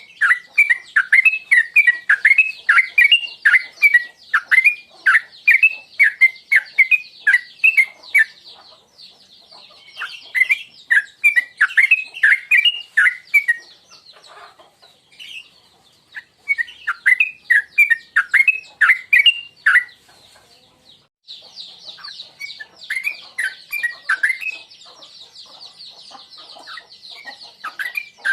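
Sooty-headed bulbul (trucuk) singing runs of quick, bubbly warbling notes, the 'tuklik tuklik ngingklong' song, in phrases of several seconds separated by short pauses. A steady high buzz runs behind much of it.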